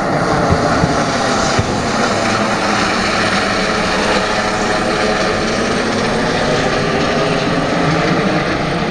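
Airbus H145 D3 helicopter passing low overhead: the whine of its twin turbine engines and the noise of its five-blade main rotor and ducted Fenestron tail rotor, loud and steady.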